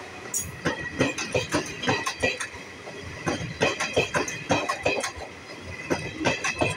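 Passenger train coaches passing close at speed, their wheels clattering over the rail joints in rapid, uneven runs of sharp clicks over a steady rumble.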